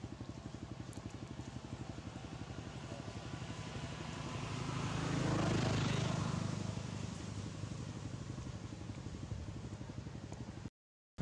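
A motor vehicle engine running steadily with a rapid low pulse, joined by a passing vehicle that swells and fades around the middle. The sound cuts out briefly near the end.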